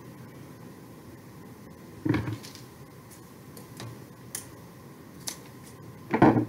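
Scissors cutting and handling a length of burlap twine: a few light clicks and two louder short rustling bursts, one about two seconds in and one near the end, over a steady background hiss.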